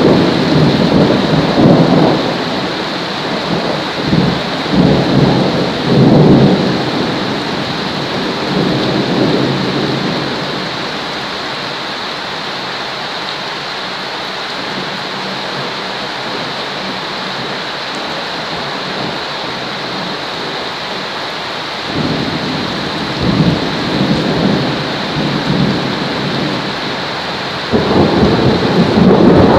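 Steady rain hiss with rolls of thunder. The rumbles come and go through the first third, fade to rain alone in the middle, and return near the end.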